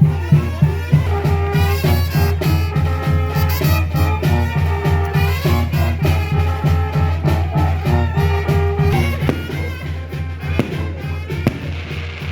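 Mexican brass band (banda) playing a lively tune: a low bass pulse on a quick, steady beat under brass melody lines.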